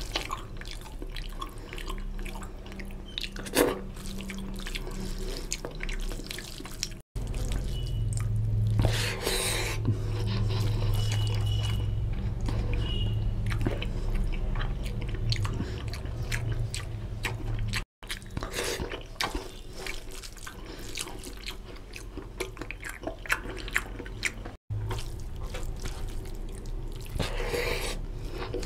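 Wet squelching and smacking of a hand mixing rice into oily mutton curry on a steel plate, with chewing, as a dense run of small wet clicks. The sound cuts out completely for an instant three times.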